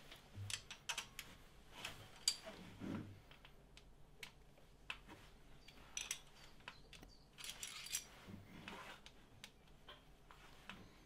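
Faint metallic clicks and short scrapes of a 10 mm spanner and a flat-bladed screwdriver on the valve adjuster lock nuts and screws of a Honda K20 cylinder head, slackening them to take valve spring pressure off the intake camshaft.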